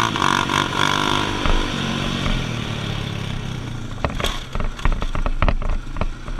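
ATV engine running steadily, then about four seconds in a rapid series of knocks and clatters as the ATV crashes.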